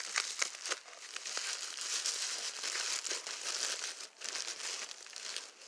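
Green plastic bubble wrap crinkling and crackling as it is unwrapped by hand, a steady run of small crackles.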